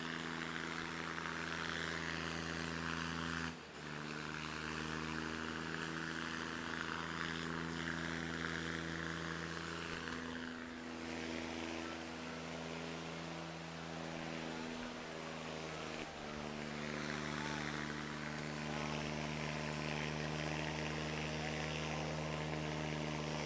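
John Deere 5210 and Preet 6049 tractor diesel engines held at full throttle, pulling against each other under heavy load, a steady drone that breaks off for an instant about three and a half seconds in and again near sixteen seconds, its pitch shifting slightly after each break.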